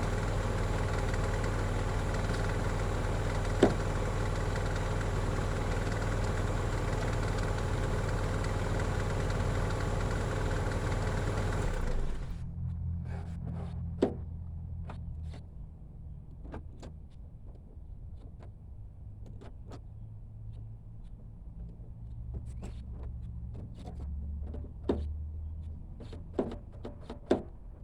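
A steady running hum like a car idling for about twelve seconds, then it drops to a quieter low hum. A scattering of sharp clicks and knocks follows, the loudest a few seconds before the end: a car door's interior handle and latch being worked and tried.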